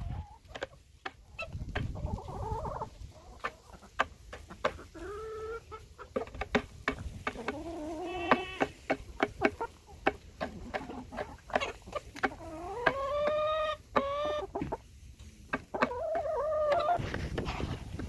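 Chickens clucking and calling, with several drawn-out rising calls and many short sharp pecking-like clicks in between.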